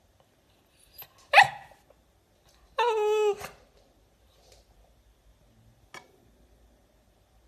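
Cavalier King Charles Spaniel giving one sharp bark, then about a second and a half later a short, high whining howl that sinks slightly in pitch.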